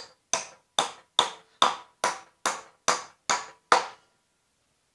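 Hammer driving nails into the end of a wooden 4x4 post: about nine evenly spaced strikes, a little over two a second, each with a short metallic ring, stopping near the end.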